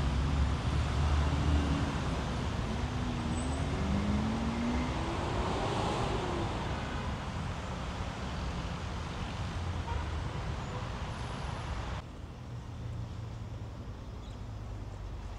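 Road traffic: a steady wash of passing cars with a low rumble, and an engine rising in pitch as a vehicle accelerates about four to six seconds in. The sound drops and thins abruptly about twelve seconds in.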